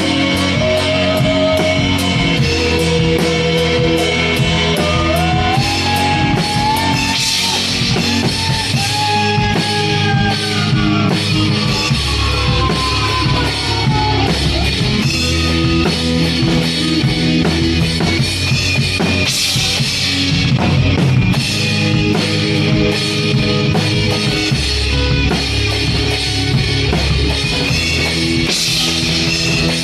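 Live rock band playing an instrumental passage: a full drum kit with bass drum and steady cymbal strokes under bass and guitar. In the first half a lead line slides and bends in pitch.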